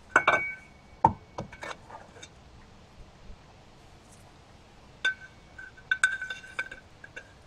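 Metal pieces clinking together: a few sharp clinks with a brief ringing tone near the start, then quiet, then a cluster of ringing clinks about five to seven seconds in.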